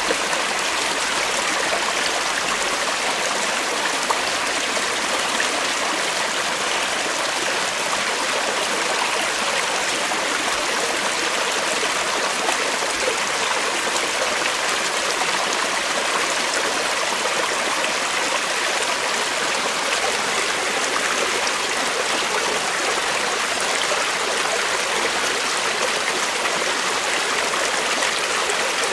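Creek water flowing steadily over rocks, a continuous rushing and trickling without let-up.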